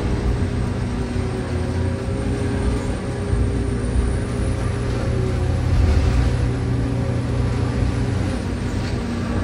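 Sennebogen scrap-handling machine running and working, heard from inside its cab: a steady low rumble with several steady hum tones, and a faint high whine that stops near the end.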